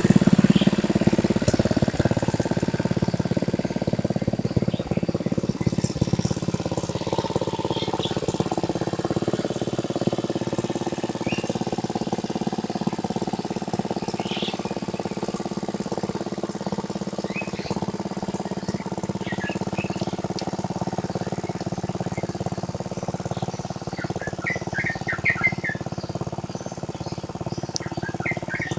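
Engine of a tractor ploughing a rice paddy, running steadily and slowly fading away. Birds chirp over it, with a quick run of chirps near the end.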